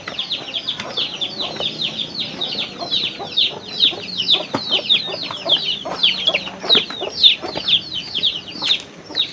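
Many small birds chirping continuously: quick, high downward-sliding chirps, several a second, overlapping one another.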